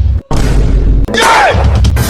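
Edited, bass-heavy boom sound effect that cuts out for an instant about a quarter second in and comes back, followed about a second in by a short falling whistle-like tone over noise.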